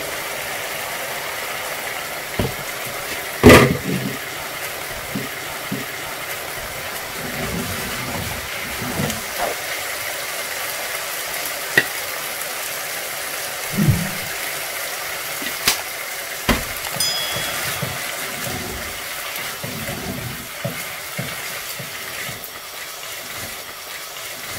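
Chicken breast strips sizzling in a frying pan while a silicone spatula stirs them, with scattered knocks against the pan and one loud clatter about three and a half seconds in.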